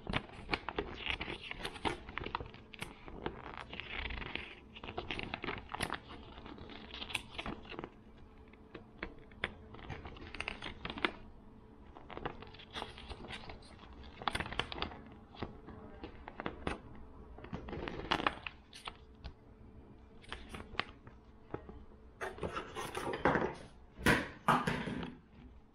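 Paper and packaging handled by hand: a folded paper leaflet rustling, then a glossy plastic pouch crinkling, with small taps and clicks throughout. The crinkling is loudest near the end.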